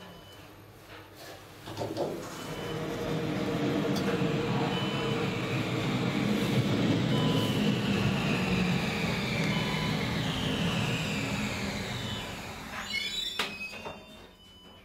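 Passenger lift car travelling in its shaft. A steady rumble and rush builds about two seconds in, then a high whine falls in pitch as the car slows. Clicks and knocks sound as it stops near the end.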